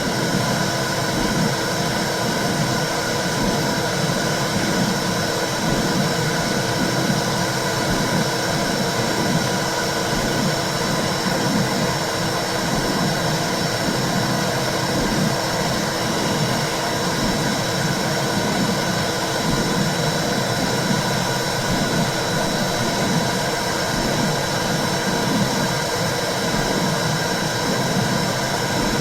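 Womb sound for soothing a baby: a steady whooshing rush with a slow, rhythmic low pulse under it, like blood flow and the mother's heartbeat heard from inside the uterus.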